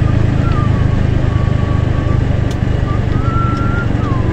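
Steady drone of a moving vehicle's engine with road and wind noise, riding along at a constant pace. A thin, wavering whistle-like tone comes and goes above it, longest about three seconds in.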